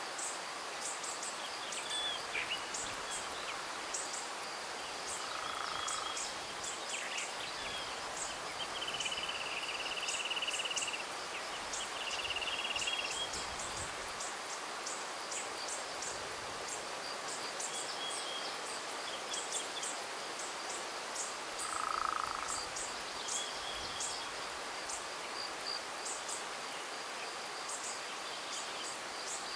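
Spring hillside ambience: a steady high insect buzz with many quick high ticks, and several birds singing short held and trilled notes, the clearest in the middle, over a soft wind rush.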